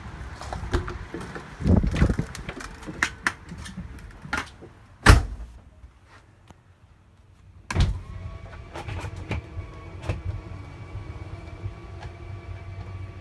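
Footsteps and handling noise on gravel, then climbing the travel trailer's metal entry steps and going in through its door, with a loud bang about five seconds in. After a short lull and another thump, a faint steady hum inside the trailer.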